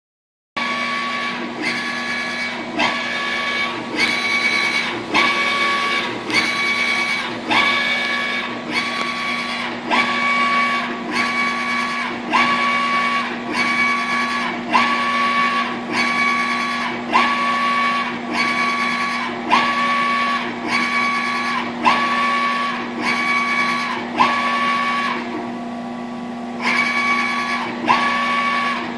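Direct-to-garment (DTG) printer printing on a T-shirt: the print-head carriage shuttles back and forth, its motor whine switching on and off with each pass about once a second over a steady hum. It pauses briefly near the end, then resumes.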